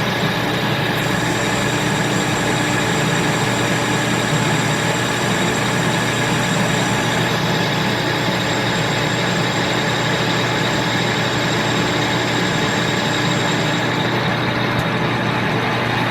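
Victor 1640 manual lathe running, with the steady hum of the American Rotary rotary phase converter that feeds its motor three-phase power from a single-phase supply. Several steady whining tones sit over the hum; the highest one stops near the end.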